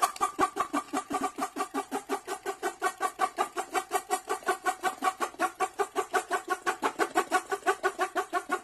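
Channel intro sound effect: a rapid, even run of short pitched pulses, about six a second, that cuts off suddenly at the end.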